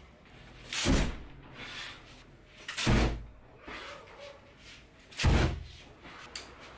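Three sudden whooshes of flame, roughly two seconds apart, from a homemade punch-activated flamethrower glove: a solenoid valve releases gas from a mini tank and a plasma arc lighter ignites it with each punch.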